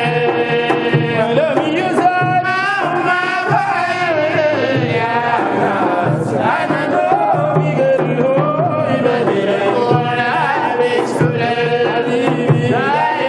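Voices singing a Sufi madih (praise song) over a steady, repeating hand-drum beat.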